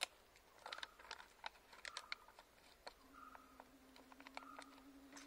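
Faint, scattered light clicks and taps of a stingless-bee hive box being handled and closed. A steady low hum joins about three seconds in.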